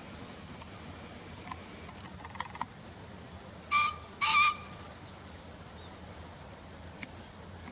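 Male green pheasant crowing: two short, harsh calls about half a second apart, a little under four seconds in.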